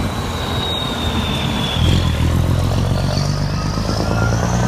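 A steady, engine-like drone, low and humming, that swells and rises slightly in pitch about two seconds in, with a faint high whistle above it.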